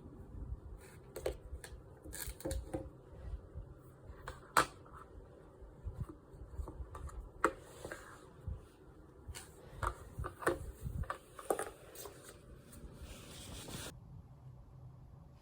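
Irregular clicks, taps and rustling of small objects being handled in a small room, the sharpest click a little under five seconds in.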